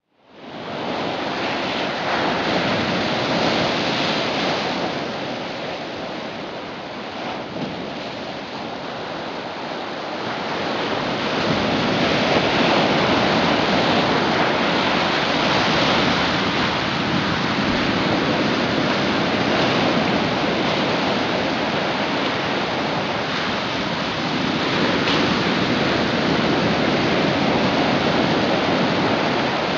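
Ocean surf: a steady rush of breaking waves that eases a little several seconds in, then swells again and holds.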